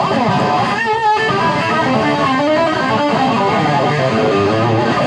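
Electric guitar played through a Ceriatone One perCentaur overdrive pedal, its burn knob fully up and output at half. The guitar plays a driven riff of chords and single notes, with a wavering, bent note about a second in.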